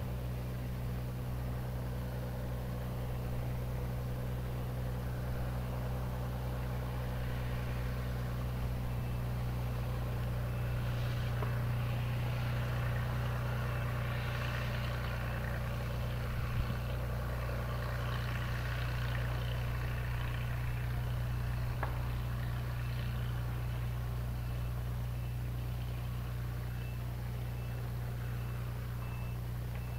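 Cirrus SR22 G3's six-cylinder piston engine and propeller at low taxi power, a steady low drone, a little louder in the middle as the aircraft rolls past.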